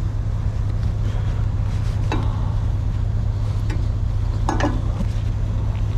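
A steady low engine rumble of an idling vehicle runs throughout. Two short clicks or scrapes of hand work on the air hose come about two seconds in and again near four and a half seconds.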